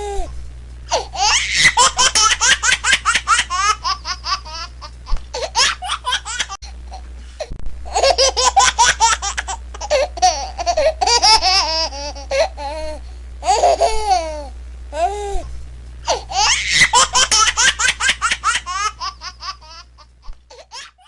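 Laughter sound effect: bouts of hearty, rapid laughing broken by short pauses, with the same laugh seeming to come round again later, over a steady low hum. It fades out at the very end.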